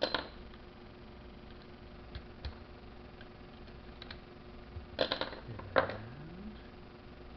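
Clicks and clatters of small hard parts being handled and fitted by hand during a brush change on an angle grinder. The loudest come at the start and in a quick cluster about five seconds in, followed by a brief rising squeak, over a faint steady hum.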